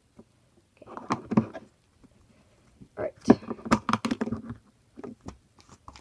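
A small plastic container being handled and tapped as loose diaper fluff is pulled apart and shaken out of it: two bursts of rustling, clicks and knocks, the first about a second in and a longer one from about three to four and a half seconds in.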